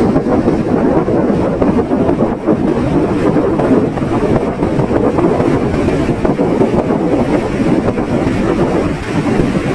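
Sea waves washing on a beach in a steady, dense rush, with wind buffeting the microphone and adding a low rumble.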